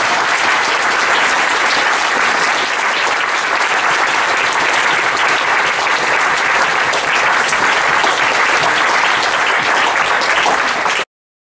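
Audience applauding steadily, a dense crowd of hand claps in a room, cut off suddenly near the end.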